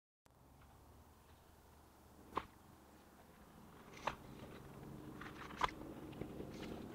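Footsteps crunching on loose dirt, faint at first and getting louder as the walker comes closer, with three sharper crunches about a second and a half apart.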